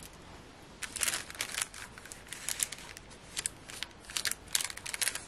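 Clear plastic packet of self-adhesive gem swirls crinkling and rustling in the hands, in irregular spells starting about a second in.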